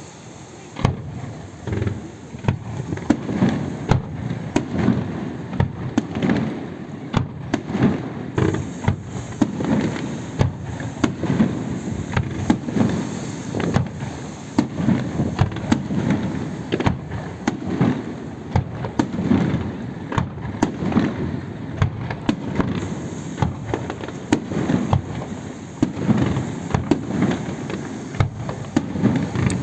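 Festival fireworks display: a dense, continuous barrage of bangs and booms, starting about a second in and keeping going without a pause.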